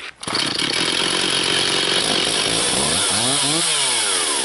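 Chainsaw mounted in an Alaskan chainsaw mill, running hard from just after the start, with its engine pitch climbing and then falling back near the end.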